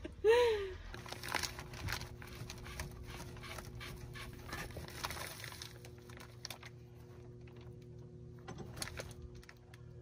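Faint clicks and rustles of a hand handling a threaded fitting at the water inlet of an RV water heater tank, over a steady low hum of several fixed tones.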